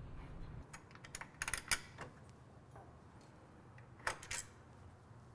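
Light metal clicks and taps of a hex key and small screws as the heel guard is unscrewed from a motorcycle rearset: scattered clicks, a quick cluster about a second and a half in, and another couple about four seconds in.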